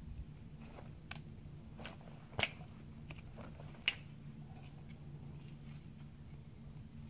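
A few short, sharp clicks and snicks of knife work on a bison carcass, the two loudest about two and a half and four seconds in, over a faint low steady hum.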